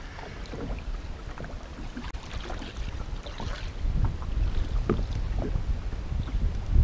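Wind buffeting the microphone over water lapping around a small fishing boat; the wind rumble grows stronger about four seconds in.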